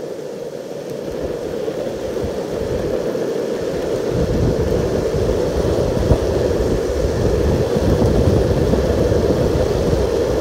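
Arbor longboard's urethane wheels rolling steadily over coarse asphalt, growing louder over the first few seconds, with a deeper rumble joining about four seconds in.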